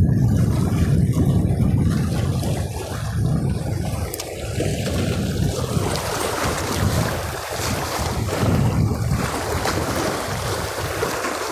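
Wind buffeting the microphone in gusts over the wash of sea waves against a breakwater; the hiss of the surf grows louder about halfway through.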